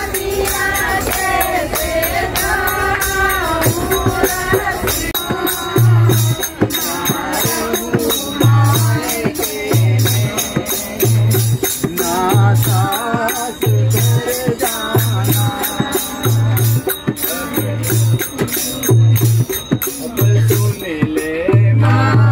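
Women singing a Bheem bhajan, a devotional song in praise of B. R. Ambedkar, together to a dholak and a jingling tambourine. From about five seconds in, a low drum stroke falls about every second.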